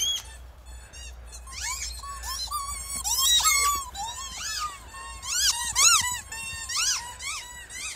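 Squeaky hamburger dog toys squeaking over and over as two boxer dogs bite down on them while running: a quick string of short rising-and-falling squeals, coming thick and fast from about a second and a half in.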